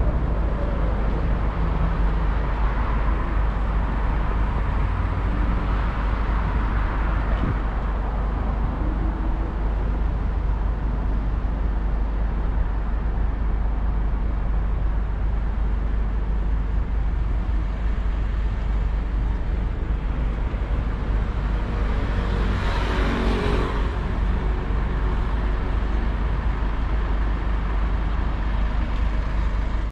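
Street traffic running steadily beside the pavement, with a constant low rumble. One vehicle passes close by about three quarters of the way through, rising and fading.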